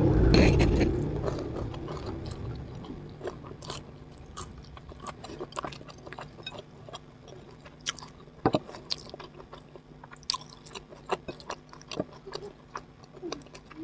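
Close-miked chewing and eating sounds: loudest in the first second, then fading to quieter, scattered sharp mouth clicks.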